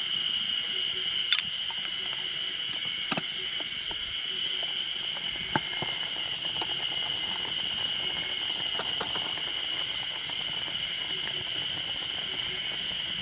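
Occasional sharp clicks and taps, from wood crackling in a small firebox stove and chopsticks stirring egg in a metal mess tin, over a steady high drone of insects.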